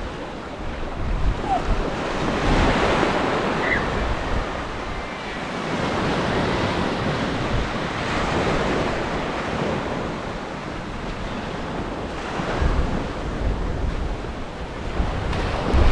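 Small surf breaking and washing up a sandy beach, the hiss swelling and fading with each wave. Wind rumbles on the microphone now and then.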